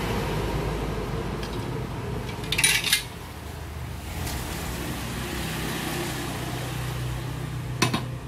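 Stallions Siam 150 motorcycle's stock exhaust pipe and muffler handled on a workbench: a metallic scrape and clatter about two and a half seconds in as it is lifted, and a short clank near the end as it is set back down, over a steady low background hum.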